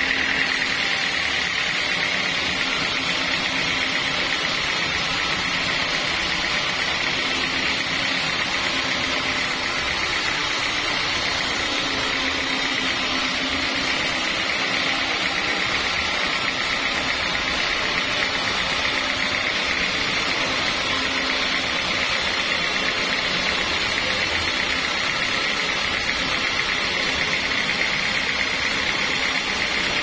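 Band sawmill blade sawing lengthwise through a thick acacia log, with its motor driving the blade: a steady high whine over a dense hiss.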